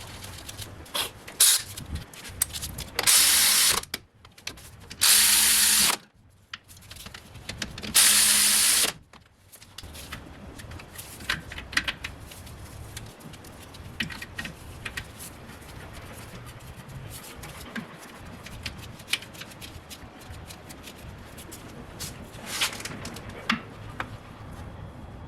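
Power tool run in three short bursts of about a second each, with scattered metal clicks and knocks between and after, as the rear axle shaft is bolted back in.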